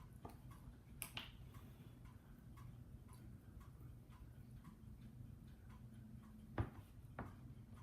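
Faint regular ticking, about two ticks a second, like a clock in a quiet room, with a few louder clicks and knocks about a second in and near the end.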